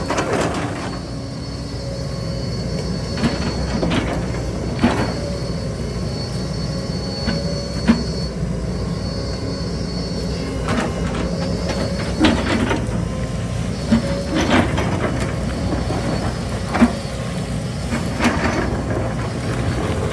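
Excavators at work: diesel engines running steadily, with sharp clanks and knocks at irregular intervals and a thin high whine through the first half.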